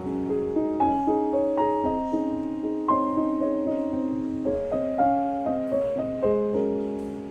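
Background piano music: soft notes played one after another, each ringing and fading.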